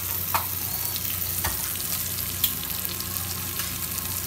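Food sizzling in a pot on the stove, a steady hiss, with a few sharp clicks and knocks of kitchen things, the loudest about two and a half seconds in.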